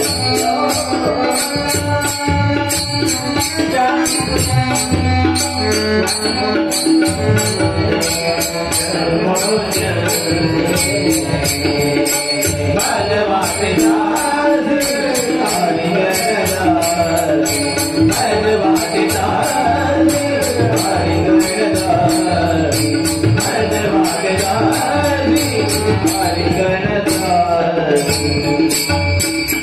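Marathi devotional bhajan: singing over a steady sustained drone, with rhythmic percussion keeping a quick, even, jingling metallic beat.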